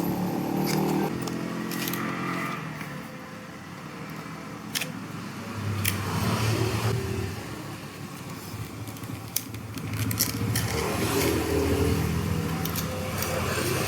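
Sharp clicks and crackling of small hardware and packaging being handled, as an M.2 NVMe SSD is got out for fitting. A motor vehicle engine runs in the background at times, clearest in the second half.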